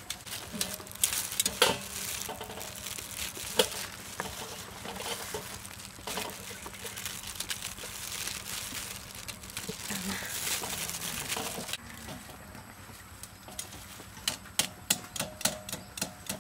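Metal tongs and a knife clinking and scraping against stainless-steel bowls and a perforated colander while cooked chicken pieces are handled, with a quick run of sharp clicks near the end. Under the clicking, a steady hiss cuts off about twelve seconds in.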